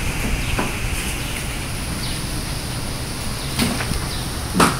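Tropical-storm wind gusting through leafy trees, a steady rushing noise with a low rumble of wind on the microphone. Two brief bumps come near the end.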